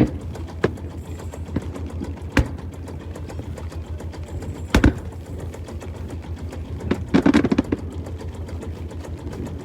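Cruise boat's inboard engine running with a fast, even low throb, with a few sharp knocks and a brief rattle about seven seconds in.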